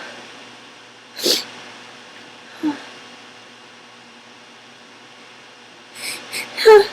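A woman with a head cold sneezing: one short sneeze about a second in and a small vocal catch, then near the end two quick sharp breaths leading into a loud voiced sneeze.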